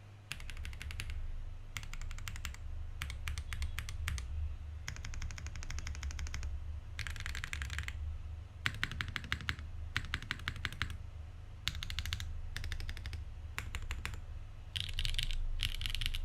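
Typing on a Leaf65 custom mechanical keyboard with lubed and filmed Cow POM-stem switches, an aluminium plate, no foam and ABS keycaps: quick runs of keystrokes in bursts of about a second with short pauses between.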